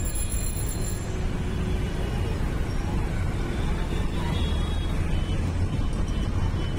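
Steady low rumble of a bus on the move: engine and road noise.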